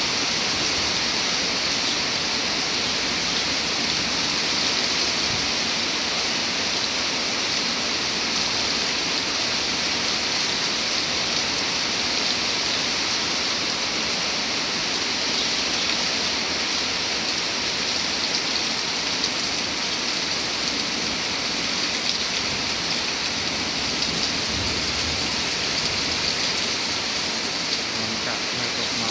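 Steady, even rain falling, a constant hiss of drops on surfaces.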